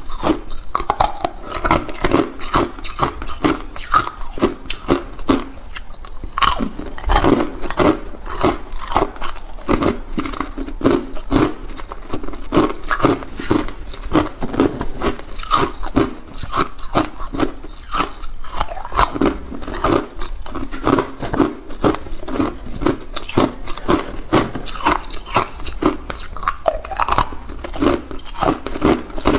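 Hard clear ice cubes being bitten and chewed: a continuous run of sharp crunches and cracks, several a second.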